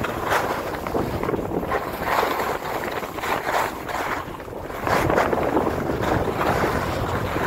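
Wind rushing over the microphone and edges scraping across packed, groomed snow during a downhill run, the scraping swelling with each turn about once a second.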